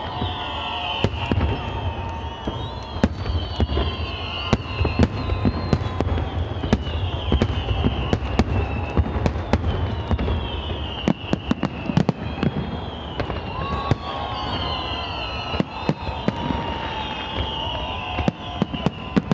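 Aerial fireworks display: a rapid, irregular string of sharp bangs and cracks from shells bursting overhead over a low rumble, with high falling whistles repeating every second or two.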